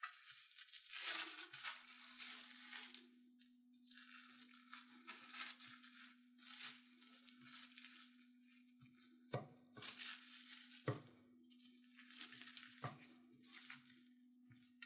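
Crinkling and rustling in repeated bursts, with three sharp knocks in the second half, over a steady low hum.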